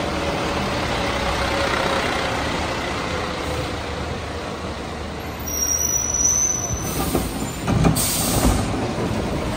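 CCC rear-loader garbage truck running as it passes, its engine steady, then a brief high squeal and sharp bursts of air-brake hiss as it pulls to a stop near the end.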